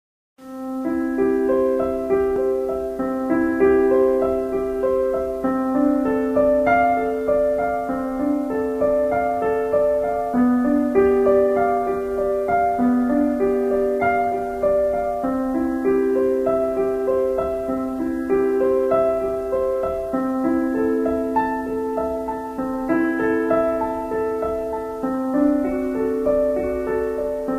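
Background music: a calm keyboard piece of held notes, a low note changing every couple of seconds under a slow melody, starting about half a second in.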